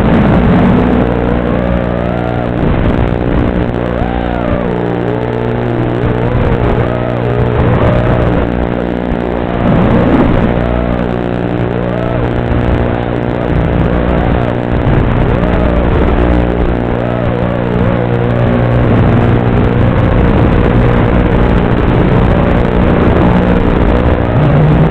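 An FPV quadcopter's brushless motors whining, their pitch gliding up and down with the throttle, heard through the onboard camera's microphone over the analog video link. A steady electrical buzz runs underneath.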